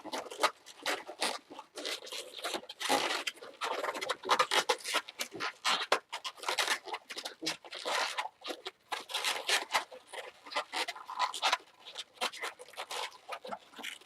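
Latex 260 twisting balloons rubbing against each other and against the hands as they are twisted and locked together, many short irregular scrapes and rustles.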